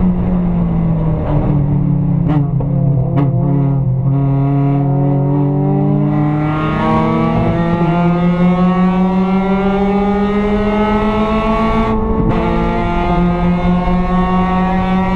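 Mazda Miata race car's four-cylinder engine at racing speed: a few sharp clicks in the first four seconds, then the engine note climbing steadily as it accelerates, with a brief break about twelve seconds in before it carries on rising.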